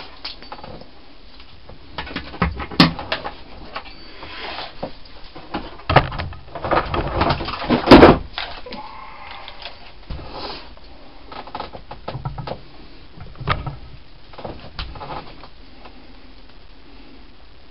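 Handling noise: irregular knocks, clicks and rustles, with a cluster of louder knocks about six to eight seconds in.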